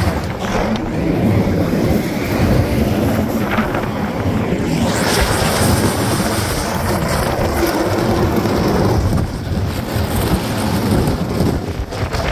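A ute driving across grass and gravel, towing plastic kayaks on a rope. Its running and the rough rumble of the tow over the ground are heard under heavy wind buffeting on the microphone.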